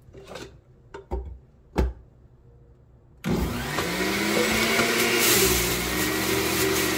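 A few light knocks, then about three seconds in an electric centrifugal juicer's motor switches on with a rising whine and runs loudly, grinding carrots pushed down its feed chute. Its pitch sags a little as the carrots are pressed in.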